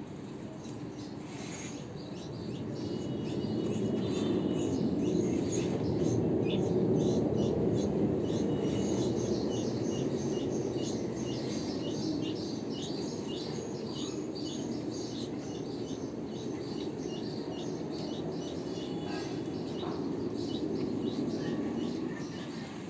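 Birds chirping: many short, high chirps repeated rapidly over a steady low rumble.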